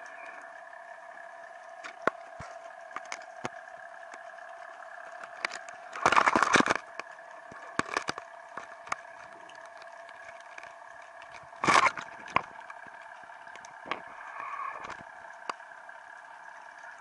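Underwater recording: a steady hum of several fixed tones, with scattered sharp clicks and two louder noisy bursts about six and twelve seconds in.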